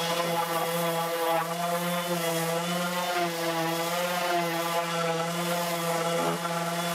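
Electric sander running steadily on plywood, a constant motor hum whose pitch wavers slightly as it is worked over the wood.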